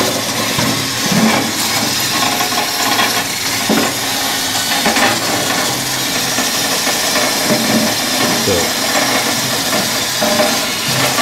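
Grillbot grill-cleaning robot running on a metal grill grate: its motor-driven wire brushes scrub and rattle steadily across the grate, with a few knocks as it bumps against the sides of the grill.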